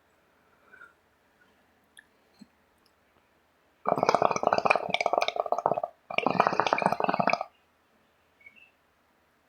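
Bong water bubbling as smoke is drawn through it, in two pulls of about two seconds and a second and a half with a short break between.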